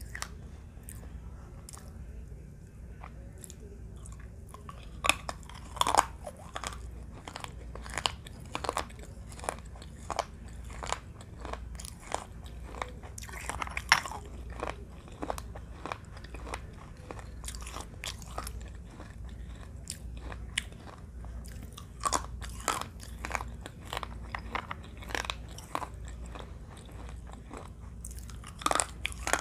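Close-up biting and chewing of edible baked clay, the red clay-pot pieces giving many irregular sharp crunches, the loudest about six, fourteen and twenty-two seconds in. A steady low hum runs underneath.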